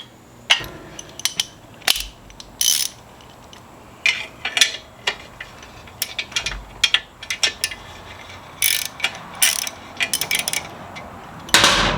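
Hand ratchet clicking in short, irregular strokes with metal tool clinks, as a socket wrench works the motorcycle's exhaust header nuts loose. The loudest stroke comes near the end.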